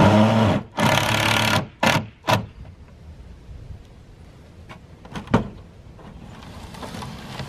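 Cordless drill driving screws into a cedar cold frame's lid: two runs of about a second each, then two short bursts, then quieter handling with a single knock about five seconds in.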